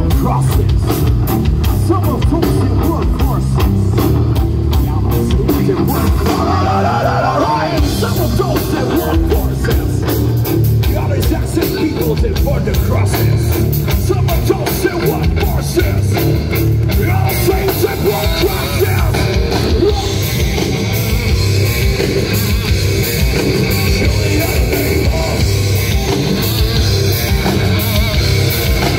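Rock band playing live through a PA system: electric guitars, bass guitar and drum kit together, loud and continuous.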